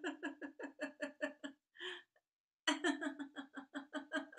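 A woman laughing deliberately, as in laughter yoga, in rhythmic "ha-ha-ha" runs of about five beats a second. She takes a quick breath about two seconds in, then starts a second run.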